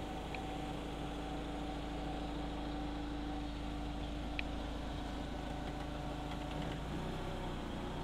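Jungheinrich TFG 320s LPG forklift engine idling with a steady hum. About seven seconds in, the note shifts slightly.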